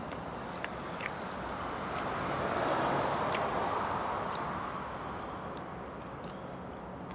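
A vehicle passing nearby, its noise swelling and fading around the middle. A few faint crackles come as crispy fried pork knuckle skin is pulled apart by hand.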